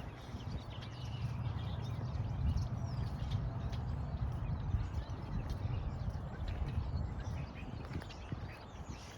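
Birds chirping over a low, uneven rumble.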